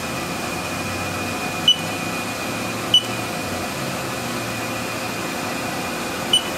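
Steady hum of a powered-up Haas Super MiniMill CNC mill standing ready, with a thin high whine over it. Three short beeps from the machine's Haas control panel sound about a second and a half in, at about three seconds, and near the end.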